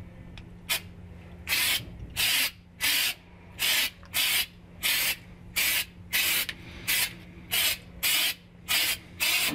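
Aerosol can of trunk paint spraying in more than a dozen short, even bursts, about one and a half a second.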